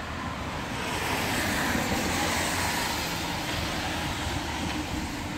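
Steady hiss of car tyres on wet asphalt mixed with rain, swelling about a second in and easing off again.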